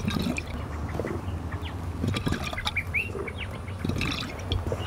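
Water bubbling inside a demonstration smoking-machine bottle as cigarette smoke is drawn through it by squeezing a rubber bulb pump: irregular small gurgles and chirp-like pops over a low hum.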